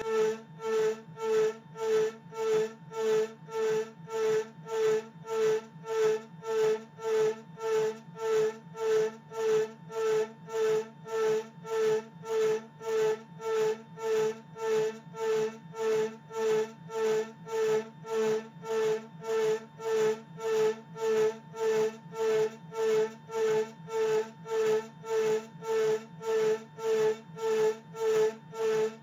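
Rownd desktop CNC spindle cutting an aluminium workpiece: a steady high whine that swells and fades in even pulses a little under twice a second as the cutter bites into the metal and leaves it.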